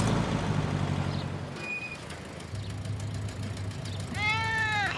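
A car engine running steadily, with a house cat meowing once about four seconds in, its pitch rising and then falling; the cat is frightened of riding in the car.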